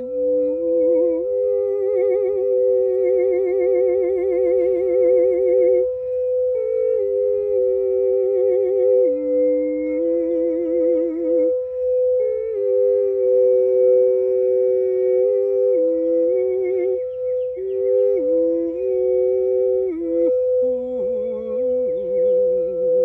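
A singing bowl ringing on one steady tone while a voice hums over it. The voice holds wavering notes with a strong vibrato and steps between pitches every second or few.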